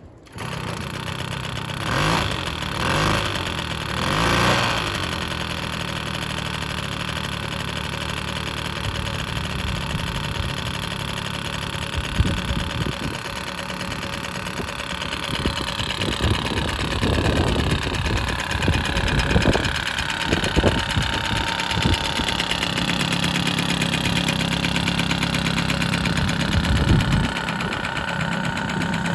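The small two-stroke engine of a 1977 Cimatti City Bike moped catches and runs. It swells three times in the first few seconds, then settles into a steady idle whose pitch wanders from about halfway through, with a few sharp knocks.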